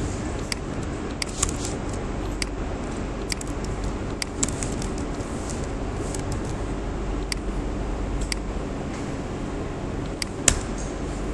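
Scattered computer keyboard keystrokes and mouse clicks, single sharp clicks at irregular intervals with one louder click near the end, over a steady low hum of room or computer noise.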